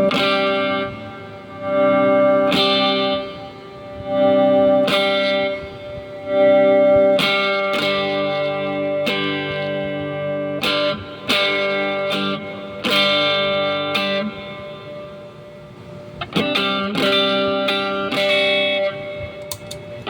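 Electric guitar played through effects, with chords and notes struck and left to ring, a new one every second or two, coming quicker near the end. This is a tone check of the guitar rig.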